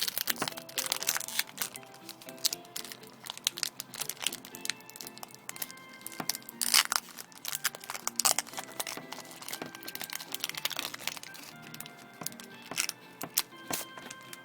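Pokémon card booster pack wrapper being torn open and crinkled, a dense run of irregular sharp crackles, over background music with held notes.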